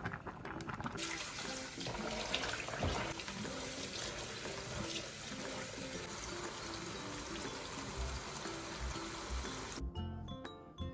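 Kitchen tap running into a sink, rinsing cooked rice noodles in cold water; the water comes on about a second in and stops suddenly near the end. Background music plays under it.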